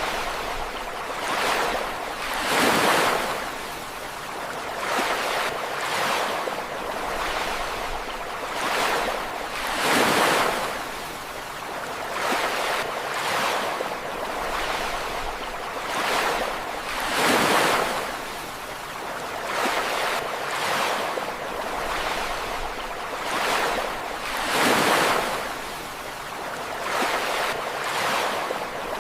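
Ocean waves breaking on a shore: a steady wash of surf, with a bigger wave crashing about every seven or eight seconds and smaller surges between.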